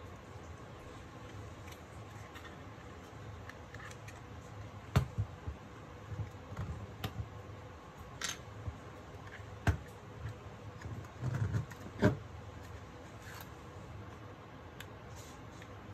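Scattered key presses on a Razer Huntsman Mini's linear optical switches: a handful of soft clacks and thumps at irregular intervals, starting about five seconds in. The switches are very quiet and only sound when struck firmly.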